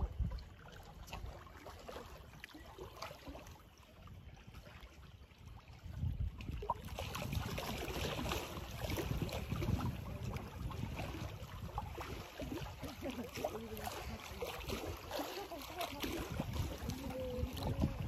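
Outdoor wind and water noise on the microphone: an uneven low rumble that grows louder about six seconds in.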